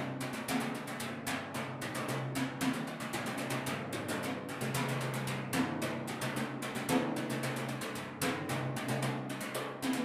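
Timpani played with Vic Firth Live Wires brushes: a quick, dense run of brush strokes on the heads, with the drums' low pitch ringing under them. The ringing pitch changes twice, about halfway through and near the end, as the strokes move to another drum.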